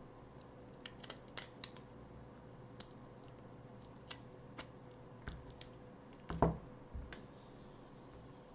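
Small tools and parts clicking and tapping irregularly against an iPhone screen assembly while the home button and its bracket are fitted, about a dozen light clicks with one heavier knock near the end, over a faint steady hum.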